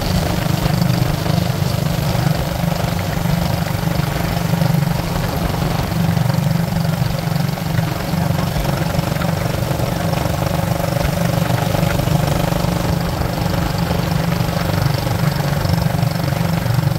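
Motor vehicle engine running steadily, with a constant low rumble.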